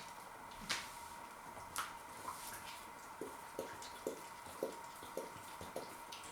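Staffordshire Bull Terrier lapping water: a couple of sharp clicks in the first two seconds, then soft wet laps about two a second.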